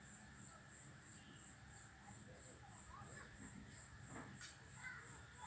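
Insects buzzing: a continuous high-pitched whine that pulses evenly, about three times a second.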